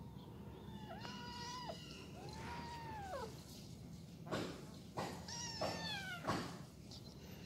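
Cats play-fighting: a cat meows three times, first a level call about a second in, then an arching call that falls away, then one falling in pitch about two seconds before the end. A few short sharp knocks come between the last calls.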